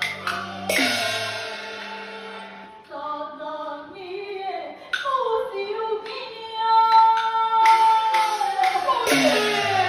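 Gezaixi (Hokkien opera) singing with its traditional accompaniment: a drawn-out, sliding vocal line that settles into one long held note about two-thirds of the way through. A struck crash sounds about a second in, and percussion strikes come near the end.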